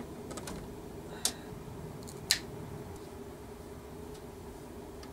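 A few sharp clicks and snips, the two loudest about a second and two seconds in, as a short piece of fuel hose on the washer-fluid line is cut shorter.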